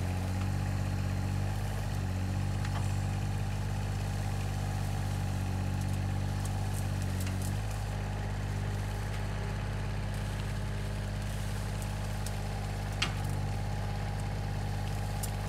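Alstor 834 mini forwarder's three-cylinder diesel running steadily while its hydraulic crane lifts a grapple load of birch branches. The engine note shifts slightly about halfway through. A single sharp knock comes near the end.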